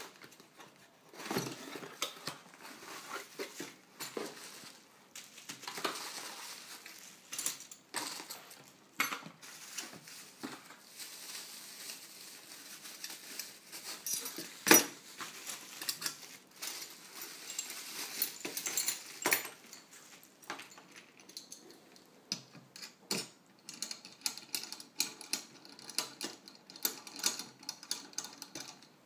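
Handling noise of unpacking a knife sharpener: plastic bags and bubble wrap rustling and crinkling, with a sharp knock about halfway through. Near the end, small metal parts click and tap as the clamp and rod are fitted onto the steel base.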